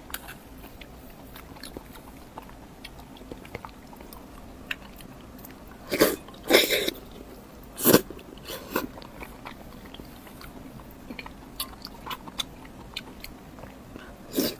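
Close-miked eating: chewing with many small mouth clicks, and a few louder sharp bites about six, seven and eight seconds in and again near the end.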